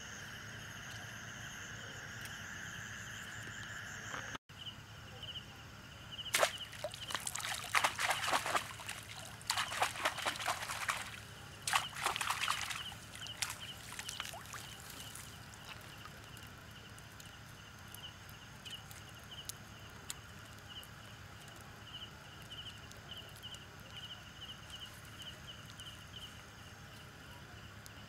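A steady, pulsing chirr of night insects, with a spell of sharp rustling, crackling and sloshing lasting several seconds, starting about six seconds in.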